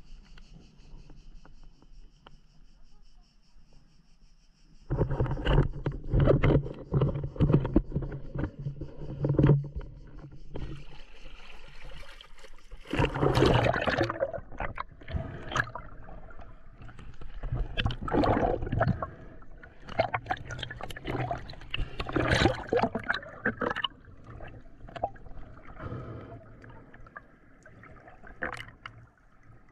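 Water sloshing and splashing around a swimming spearfisher, picked up by a GoPro HERO7 Black at and under the surface: muffled, irregular surges and knocks starting about five seconds in. Faint steady high tones are heard at first.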